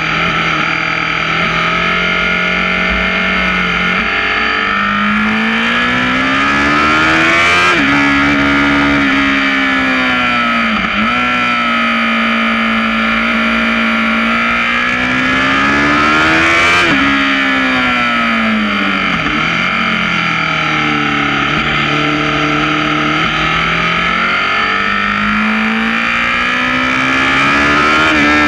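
Sport motorcycle engine at speed on track, its pitch climbing under acceleration and falling back, with sharp drops at gear changes about eight and seventeen seconds in. Wind rush over the bike is heard throughout.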